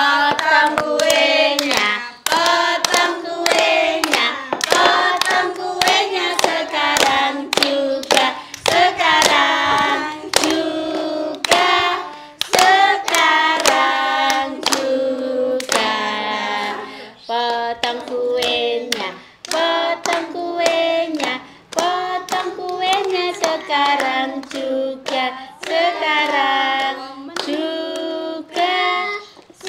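A family group singing a birthday song together while clapping along in time.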